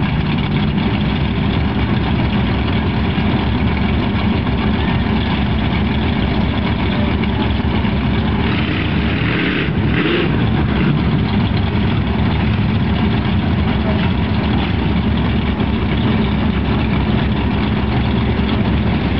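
Big lifted Chevy pickup's engine idling steadily with a deep rumble. About nine seconds in, a small 4x4 drives past close by with a short rush of engine and tire noise.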